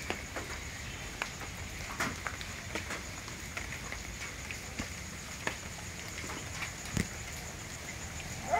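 Quiet rural background ambience: scattered light clicks and taps, about one or two a second, over a faint steady high hum.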